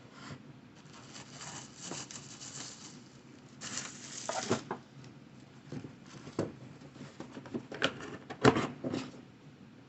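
Packaging being handled: a box and wrapping paper rustling and crinkling, with a longer rustle about four seconds in and a few light knocks and clicks.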